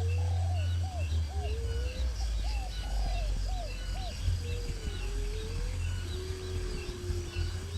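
Several birds calling: a quick run of short rising-and-falling notes, about three a second, that stops about three seconds in, long slow gliding whistles, and higher chirps, over a steady low rumble.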